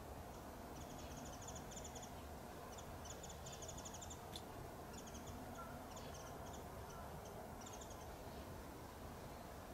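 Faint small-bird calls: short runs of rapid high ticking notes, recurring every second or so, over a low steady rumble.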